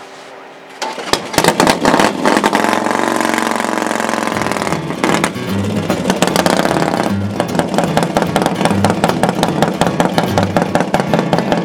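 Racing motorcycle engine running hard at high revs. About four seconds in, music with a steady, slow beat joins it.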